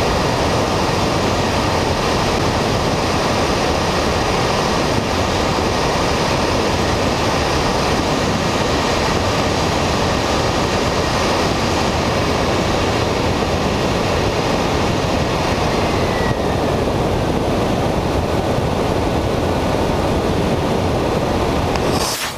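Model jet aircraft in flight, heard from a camera under its wing: a steady, loud rush of airflow mixed with the noise of its 8 kg-thrust turbojet engine. It briefly drops out near the end.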